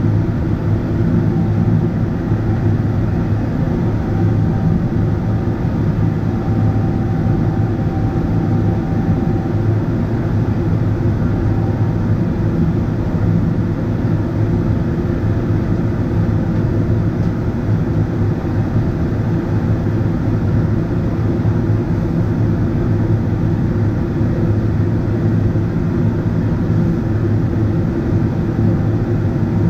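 Steady cabin drone of a Boeing 777-300ER in flight, heard inside the cabin: the GE90 engines and rushing airflow make an even, low-pitched roar that does not change.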